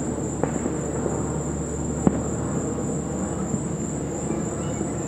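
Distant aerial fireworks shells bursting: a sharp bang about half a second in, another about two seconds in and a fainter one later, over a steady high-pitched drone.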